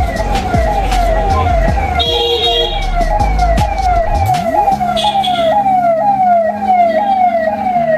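Emergency vehicle siren wailing in a fast, repeating falling sweep, about two sweeps a second, steady through the whole stretch.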